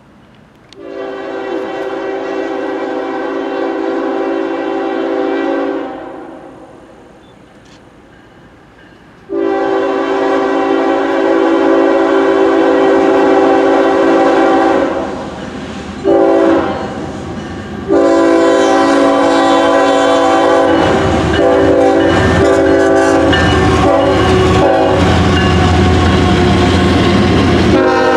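Locomotive air horn sounding the grade-crossing signal: two long blasts, a short one and a final long one held on, a chord of several tones. Under the last blast the train rolls past with a loud low rumble and clicking wheels over rail joints.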